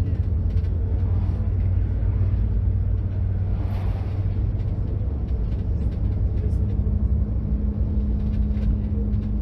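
Steady low engine and road rumble inside a vehicle cruising on a highway, with the whoosh of an oncoming vehicle passing about four seconds in. A steady low hum joins about two-thirds of the way through.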